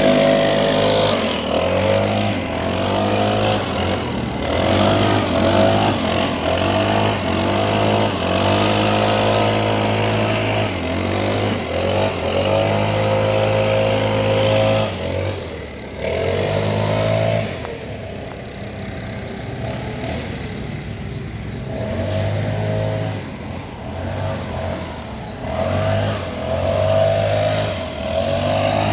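Petrol leaf blower engine running, its pitch rising and falling as the throttle is opened and eased off. A little past the middle it drops back to a lower, quieter running for several seconds, then picks up again near the end.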